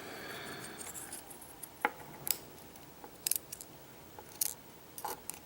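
A handful of light, sharp metallic clicks and taps, scattered and irregular, from a disassembled Vachette V5 pin-tumbler lock and the small tools handling it, as its driver pins and springs are being taken out.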